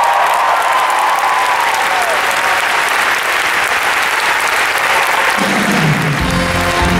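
Theatre audience applauding a musical number, with the music's last held note fading out in the first couple of seconds. New music with a steady low line comes in near the end.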